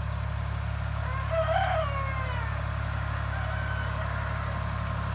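A rooster crows once, starting about a second in and lasting about a second and a half, its pitch falling at the end. A steady low engine hum runs underneath, and a fainter chicken call comes a little later.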